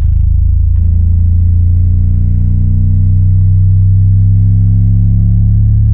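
Fredo 8-inch subwoofer, driven by a TPA3116D2 class D amplifier board, playing a loud bass test-tone sweep that climbs slowly in pitch from the very low bass, with a stack of overtones above it.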